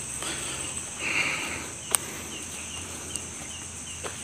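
Crickets calling at night: a steady high-pitched trill with short, regular chirps several times a second. There is a brief rustle about a second in and a sharp click about two seconds in.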